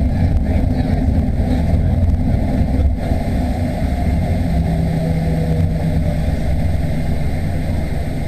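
Cabin noise inside a Boeing 737-800 rolling along the ground: the steady drone of its CFM56 jet engines mixed with rumble from the wheels and airframe, heard through the fuselage.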